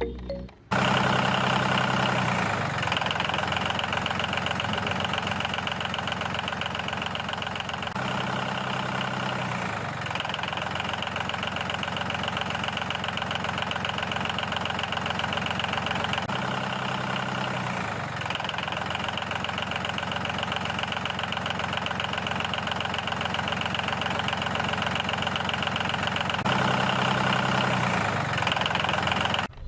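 An engine running steadily. A lower note comes in for about two seconds roughly every eight seconds.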